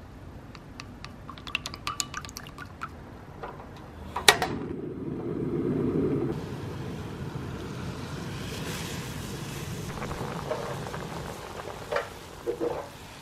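A spoon clinks lightly against a glass bowl as sauce is stirred. About four seconds in, a gas burner lights with a sharp click and a low rush of flame, then water boils in the pot, with a few knocks near the end.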